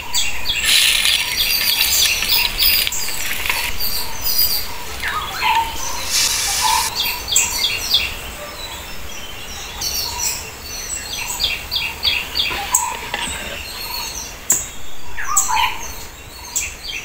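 Birds chirping in many short, repeated calls, over hot oil sizzling in a clay cooking pot for the first few seconds.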